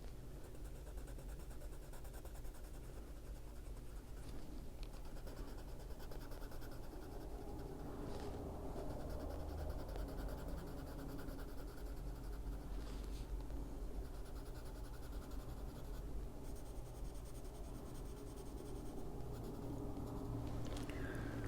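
Prismacolor colored pencil scratching across paper in steady shading strokes.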